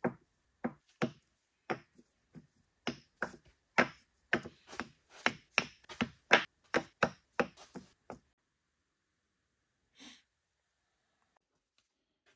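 Hole-saw-cut MDF discs clacking as they are set down and stacked one on another on a wooden workbench: a quick, uneven run of sharp knocks that stops after about eight seconds, then one softer knock a couple of seconds later.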